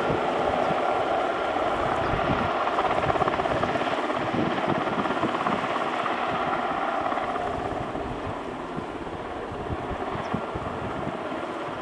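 Sikorsky S-92 twin-turbine helicopter hovering low, its rotor and engines running steadily with a high turbine whine. The sound eases off a little after about eight seconds.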